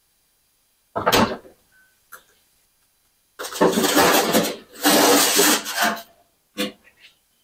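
A gas snowblower being handled and rolled across a concrete floor: a loud clunk about a second in, then a few seconds of rattling and scraping as it is pulled along, and a short click near the end.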